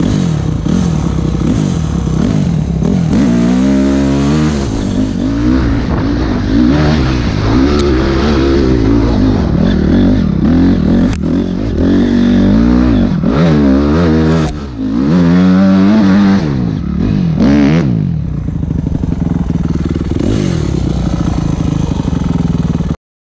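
Honda CRF250R's single-cylinder four-stroke engine revving up and down again and again while the bike is ridden off-road, heard from a helmet camera. Late on the revs settle to a steadier drone, then the sound cuts off suddenly.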